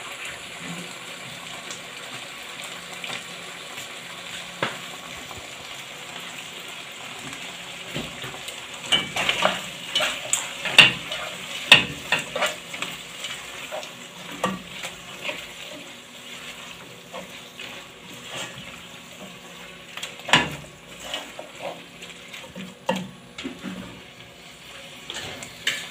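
Beef sizzling in a frying pan as spring onions are stirred in. A spoon scrapes and knocks against the pan in a busy stretch about a third of the way in, then a few more times later.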